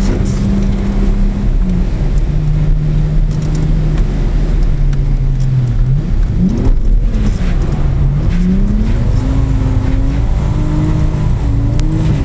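Car engine heard from inside the cabin while drifting on a wet track: the revs hold, sag, jump up quickly about seven seconds in, drop again, then climb steadily toward the end.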